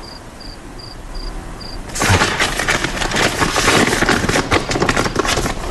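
Paper rustling and crackling in someone's hands: a dense run of sharp crackles that starts about two seconds in. Before it, cricket chirps repeat steadily, a bit more than twice a second.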